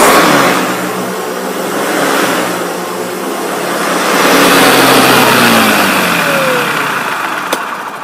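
Hoover Decade 80 upright vacuum cleaner running loud, then switched off and winding down: its whine falls steadily in pitch and fades over the last few seconds. A single sharp click near the end.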